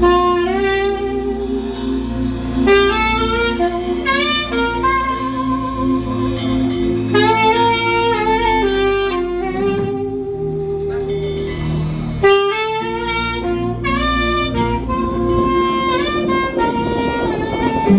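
Alto saxophone playing a worship melody of held notes and quick rising runs, over sustained keyboard chords and a low bass.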